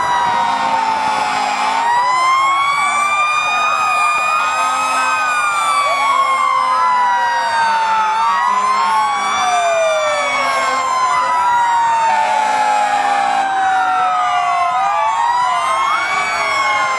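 Several fire engine sirens wailing at once, their overlapping tones slowly rising and falling.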